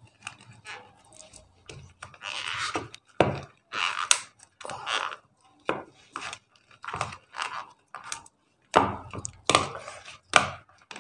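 Cooled sugar syrup mass being worked on a plate: a string of irregular scraping and knocking strokes, about one or two a second, some louder than others.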